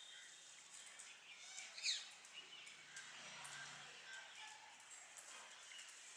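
Birds calling faintly with scattered short chirps, and one louder call about two seconds in that falls in pitch.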